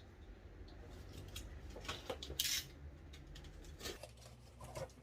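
Scattered light taps and rustles of a small cardboard box being opened and its packed parts handled, with a short, sharper scrape about two and a half seconds in.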